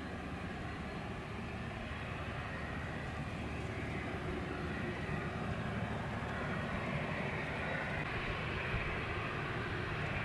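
Boeing 737 jet engines running at idle: a steady rushing noise with a hiss on top, slowly growing louder.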